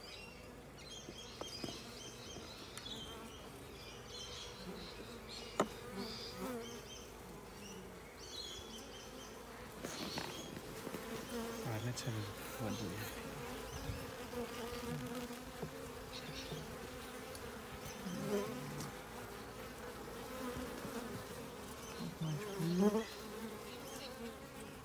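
Honeybee colony humming in an open hive as frames are lifted out: a steady buzz, with a couple of sharp clicks.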